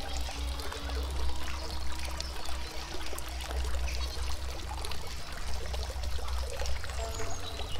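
Steady rush of flowing water, with a few faint held musical tones under it early on and again near the end.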